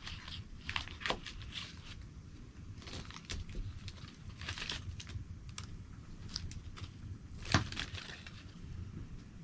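Close handling noises: irregular crinkling and light clicks, with one sharper click about seven and a half seconds in.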